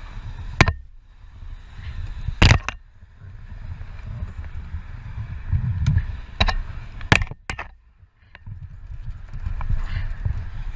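Wind rumbling on a motorcycle rider's helmet-camera microphone, broken by several sharp knocks and impacts, the loudest about two and a half seconds in, as in a sport bike crashing to the road.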